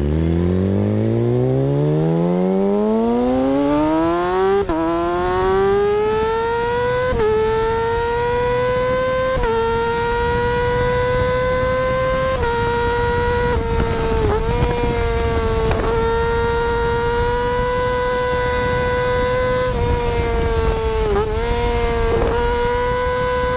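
Suzuki Gixxer 150's single-cylinder engine breathing through an aftermarket full-system exhaust, accelerating hard through the gears. The pitch climbs and drops briefly at each upshift, then holds high and steady with a few short dips off the throttle.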